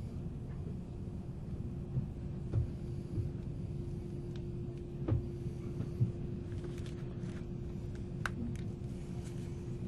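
Interior sound of a JR 485-series express motor car (MoHa 485): a steady low rumble with a constant mid-pitched hum and a few scattered knocks. There is no regular wheel-click rhythm.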